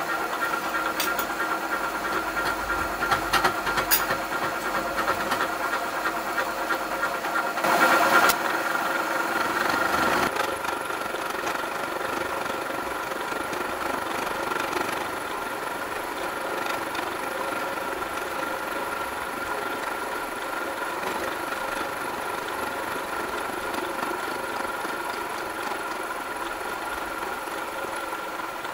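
Vertical milling machine running, its spinning face mill cutting across the top of a metal block held in a vise: a steady machine hum with several held tones, louder and noisier for a few seconds about eight seconds in.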